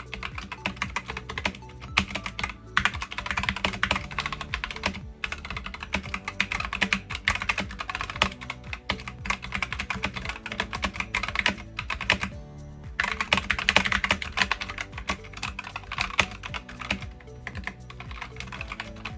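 Typing on a Glorious GMMK 2 mechanical keyboard fitted with unlubed Lynx linear switches and Cherry-profile keycaps: quick runs of keystrokes with a couple of short pauses.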